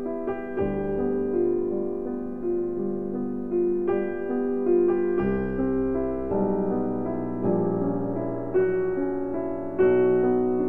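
Background piano music playing slow, held notes, with deeper bass notes joining now and then.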